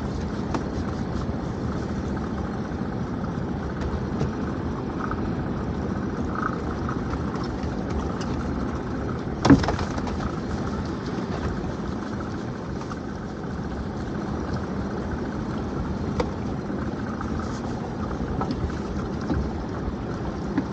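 Steady low rumble, with one sharp knock about nine and a half seconds in.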